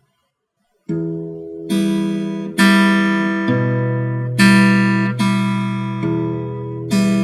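Acoustic guitar chords, each struck chord left to ring before the next one lands, about one a second. The playing starts after nearly a second of silence.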